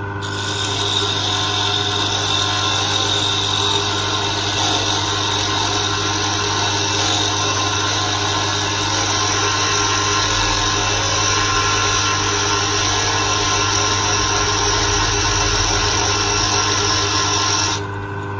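Jewelry lathe's electric motor running steadily while a hand-held diamond-plated wheel grinds against a spinning ring, a continuous grinding hiss over the motor's hum. The grinding drops away near the end.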